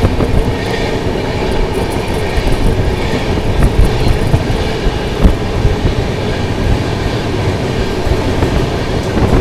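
Double-decker AC chair-car passenger train running along the track: a steady rumble of wheels on rail with a few light clacks over rail joints.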